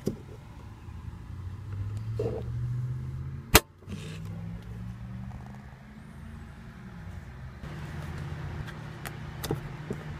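Mercedes-Benz SL550's twin-turbo V8 idling steadily. A sharp click comes about three and a half seconds in, with a few lighter clicks near the end.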